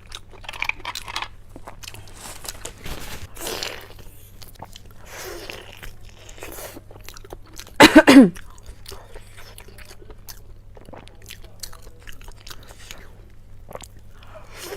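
A person eating close to the microphone: crunching, biting and chewing, with short mouth clicks and smacks throughout. A little past halfway comes the loudest sound, brief and falling in pitch.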